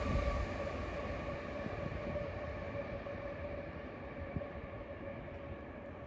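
Freight train fading away into the distance: its low rumble dies down, and a steady high whine from the train tapers off with it. A single short knock sounds about four seconds in.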